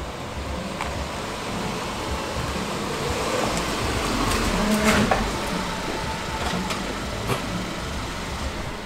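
2014 Kia Soul driving slowly up a concrete driveway, engine running and tyres rolling. It is loudest about five seconds in.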